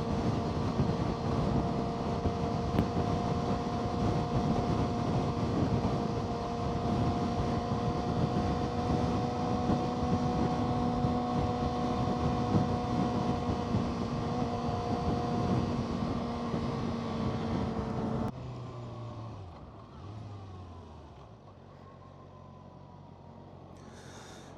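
Kawasaki ZX-6R 636's inline-four engine running at a steady pitch under a steady rushing noise. About three-quarters of the way through the sound drops suddenly and the engine note falls away, as when the throttle is closed and the bike slows.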